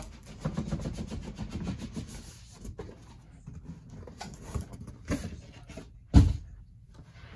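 Cardboard rubbing and scraping as a retail box is slid out of a cardboard shipping carton, then a few light knocks and one loud thump about six seconds in.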